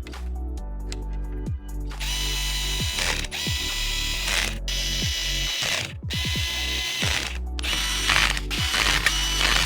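Background electronic music with a steady bass beat, joined about two seconds in by a dense mechanical ratcheting, clicking sound that stops and restarts a few times.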